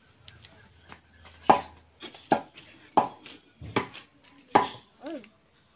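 A long digging tool jabbed down into hard soil to dig a hole, striking five times, about once every three-quarters of a second.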